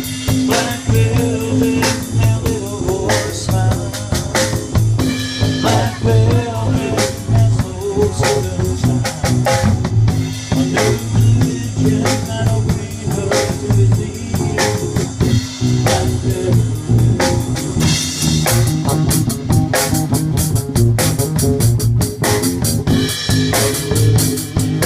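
Live music: an amplified guitar played with a steady beat running under it.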